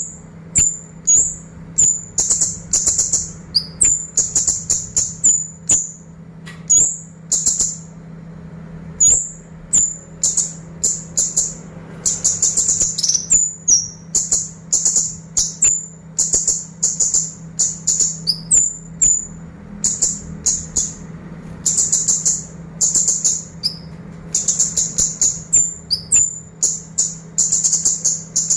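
A kemade songbird giving crisp, sharp high chirps in rapid trains of about a second each, one burst after another with short breaks between them.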